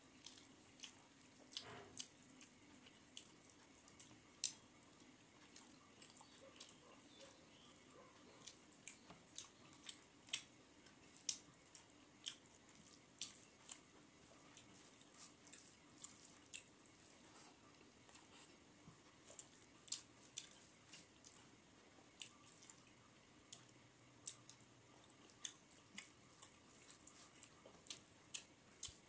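Eating by hand: fingers squishing rice and fish curry on a brass plate, with chewing and wet mouth smacks heard as a string of soft, irregular clicks.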